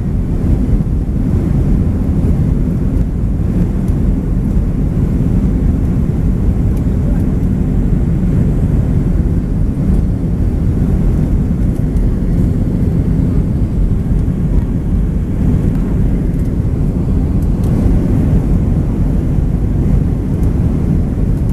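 Airbus A320 in climb, heard from inside the cabin: a steady low rumble of jet engines and airflow that holds constant throughout.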